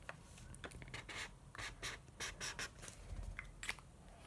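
Yellow felt-tip highlighter drawn across paper to mark a line of text: a series of short, faint scratchy strokes.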